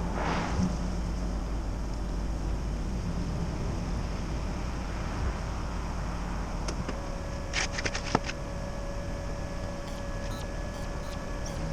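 Engine running steadily, with a few sharp clicks about eight seconds in and a steady thin whine that starts about seven seconds in.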